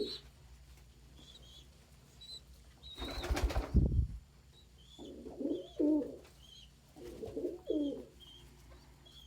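Domestic pigeons: a short burst of wing flapping about three seconds in, then two coos, one after about five seconds and one after about seven, with faint high chirps throughout.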